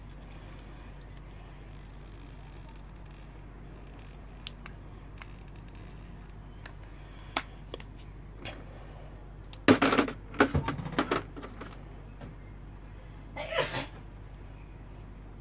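Plastic and metal parts of a toy battle top clicking and rattling as they are handled over a plastic basin: a few light clicks, then a burst of louder clicks and rattles about ten seconds in, and a short scrape near the end. A low steady hum runs underneath.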